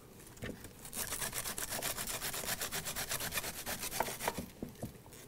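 Half a head of green cabbage rubbed down a metal box grater, shredding it in quick rhythmic strokes of about six a second. The strokes stop shortly before the end.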